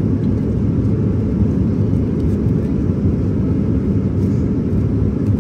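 Steady low rumble of an airliner cabin in flight, the constant engine and airflow noise, even in level throughout.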